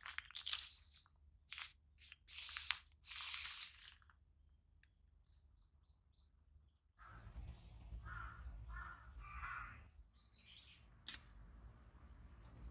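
The mesh door zipper of a DOD one-pole tent pulled open in several quick strokes, then birds chirping and calling outside, over a steady low background rumble from about seven seconds in.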